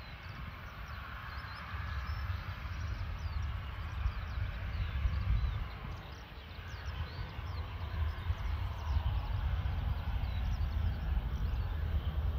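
Jet aircraft engine noise as a low, steady rumble with a rushing hiss, wind buffeting the microphone, and small birds chirping many times over it.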